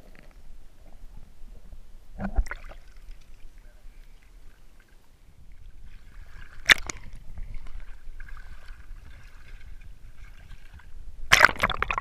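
Shallow seawater sloshing and gurgling around a crab rake as it is swept through the water. There are three sharp splashes: one about two seconds in, one near the middle, and the loudest near the end.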